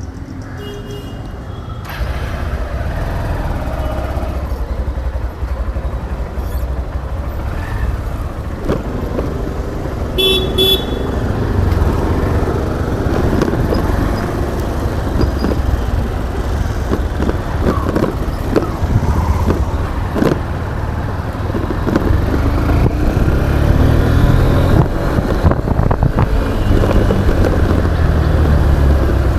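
Motorcycle riding through road traffic, picked up by an action camera's built-in microphone: a heavy rumble of engine and wind buffeting that gets louder about two seconds in and again near the end. A vehicle horn toots briefly about ten seconds in.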